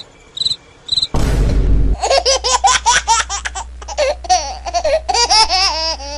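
A high-pitched laugh in a quick run of rising and falling 'ha-ha's for about four seconds. Before it come three short high beeps and a brief whoosh.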